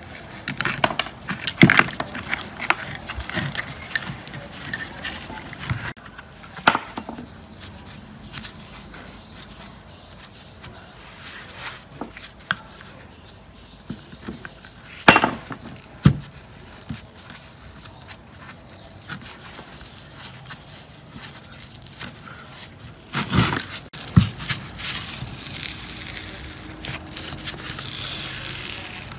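Metal parts of an old saw's housing being dismantled by hand: scattered clinks and knocks, a few of them sharp. Near the end comes a longer rasping scrape at the recessed nameplate.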